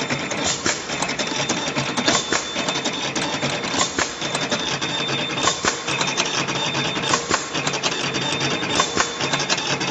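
Automatic wire cutting and stripping machine running, with rapid, irregular clicking and clacking from its feed and cutting mechanism.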